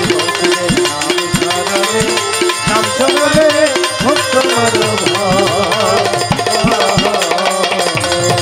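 Instrumental interlude of Bengali folk (pala gaan) music: hand drums keep a driving rhythm of bass strokes that bend down in pitch, under a wavering melody line.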